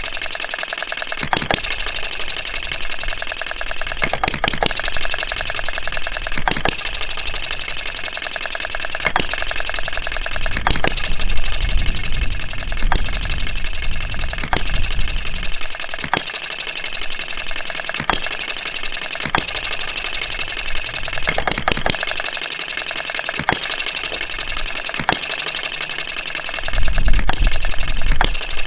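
Philip Duclos Odds and Ends model single-cylinder internal-combustion engine running with a rapid, even mechanical clatter, and a sharper bang about every two and a half seconds. A louder low rumble comes in near the end.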